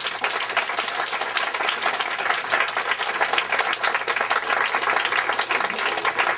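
A roomful of guests applauding: many hands clapping at once in a dense, steady patter.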